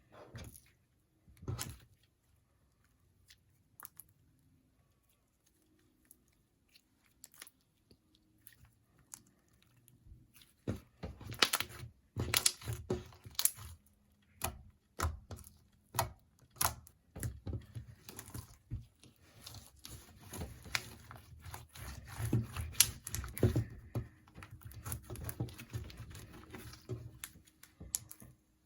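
Slime with a crumbly mud face mask mixed in, being squished and pressed by hand, making sticky crackling and popping sounds. At first there are a few scattered clicks, then about ten seconds in comes a dense run of crackles that lasts almost to the end.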